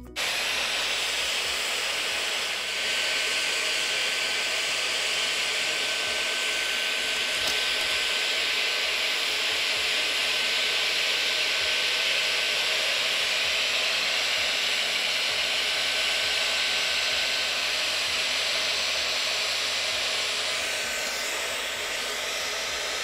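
Hot-air plastic welding gun blowing steadily while welding HDPE rod into the joint: a constant airy hiss with a faint thin whine.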